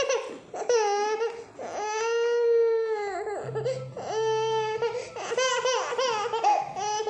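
An eight-month-old baby crying in a string of loud cries, the longest held about a second and a half with its pitch rising and falling, demanding food.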